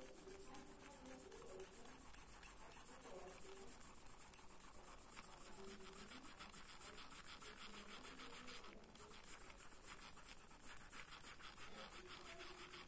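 Faint scratching of a mechanical pencil's graphite lead across paper in rapid short shading strokes, with a brief pause about nine seconds in.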